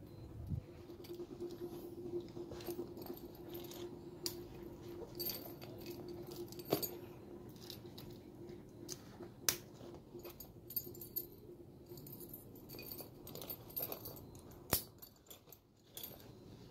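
Metal keys on a key ring and a metal snap hook clinking and jangling as they are handled, with scattered sharp metallic clicks, three of them standing out.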